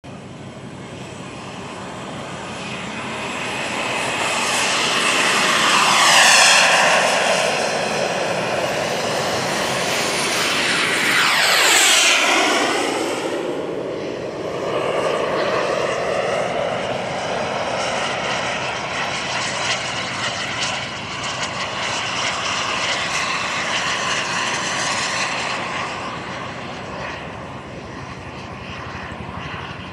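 Radio-controlled jet's turbine engine whining as the model flies, passing close twice with the pitch dropping sharply as it goes by, about six and twelve seconds in. After that it keeps a steadier, somewhat fainter whine that fades toward the end.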